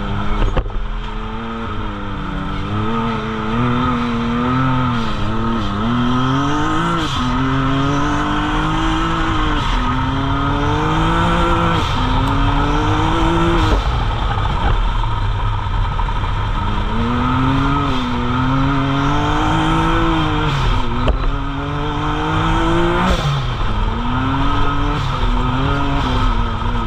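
Can-Am side-by-side engine heard from inside the cab under racing throttle, its pitch climbing in repeated runs down the straights and dropping off sharply each time the throttle is lifted for a corner.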